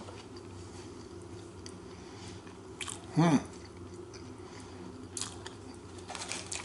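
A person chewing a mouthful of chicken sandwich, with soft wet mouth clicks that come more often near the end. A short voiced sound is heard a little over three seconds in.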